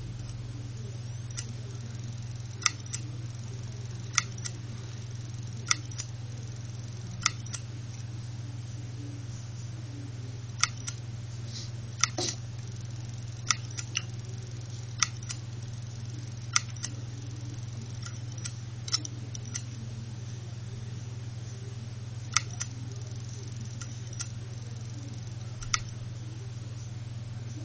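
Opened Seagate Momentus 5400.6 2.5-inch laptop hard drive running with its cover off: a steady low hum from the spinning platter and spindle motor, with sharp clicks from the head actuator arm about every one and a half seconds, irregular in places.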